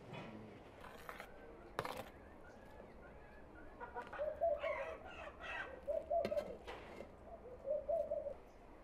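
A bird calling three times in the second half, each call drawn out for under a second, with a few sharp clicks before them.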